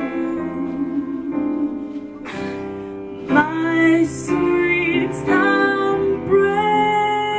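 Music: a slow, tender ballad with long held notes and no clear sung words.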